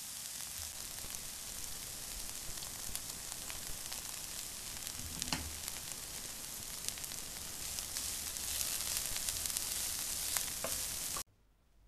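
Food sizzling as it fries in a pan, a steady hiss with a few light knocks of a utensil against the pan. It cuts off suddenly near the end.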